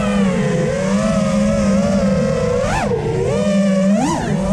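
FPV freestyle quadcopter's brushless motors and propellers whining, the pitch rising and falling with the throttle, with two quick throttle punches, one a little past halfway and one near the end. Under the whine there is a low rush of wind and prop wash.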